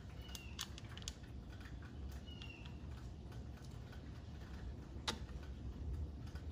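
Scattered clicks and taps of the generator's plastic air box and its bolt being handled and fitted by hand, with one sharper click about five seconds in. Two short high chirps early on sit over a steady low hum.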